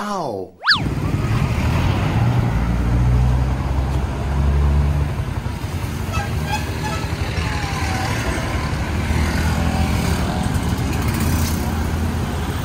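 Street traffic: engines of passing vehicles, including motorcycles, running with a steady low rumble. A short pitched sweep, falling and then rising sharply, sounds at the very start.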